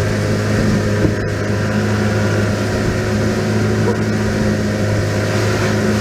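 A motor vehicle's engine running steadily with a constant low hum.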